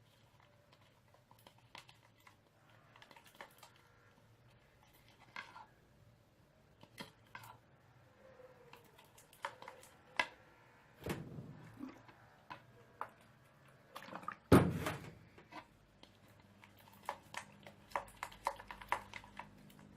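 Clear-glue glitter slime being stirred as it is activated: scattered small sticky clicks and wet squelches, with one louder thump a little past the middle.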